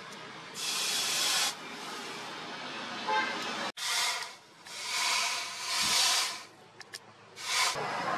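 Hot forged steel knife blade, made from a tractor disc plough, hissing as it is quenched in a water trough. It is dipped again and again, giving several separate bursts of sizzling hiss.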